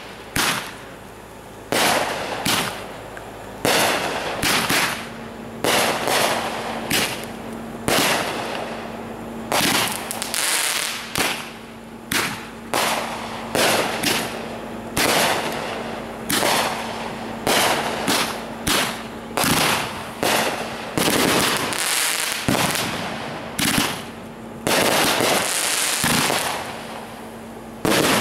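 Consumer fireworks going off: a rapid, irregular series of loud bangs, about one or two a second, each with a short decaying tail, from aerial cakes and fountains firing. A faint steady hum lies under much of it.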